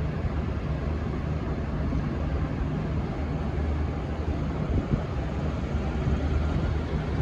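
V/Line N class diesel locomotive's engine running steadily with an even low hum and rumble.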